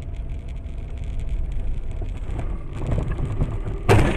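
A car's steady road and engine rumble, then one sudden loud crash near the end: a collision.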